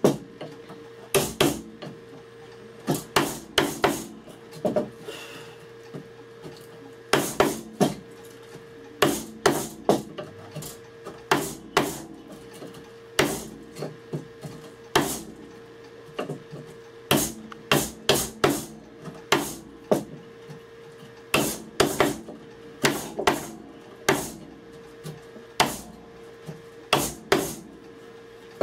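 A mortise chisel being struck to chop a slanted mortise into a round wooden stool seat: sharp knocks come in quick groups of two to four, with a short pause between groups.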